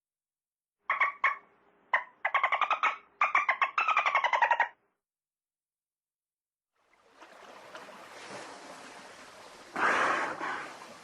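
Dolphin burst-pulse calls: several runs of very rapid clicks that blur into creaky, buzzing squawks, one sliding down in pitch, about a second to five seconds in. After a short silence a steady noisy hiss begins, swelling briefly near the end.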